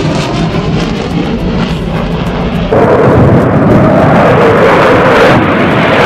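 F-16 fighter jet flying past: loud rushing engine noise that jumps in level about halfway through, with a whine that slowly falls in pitch.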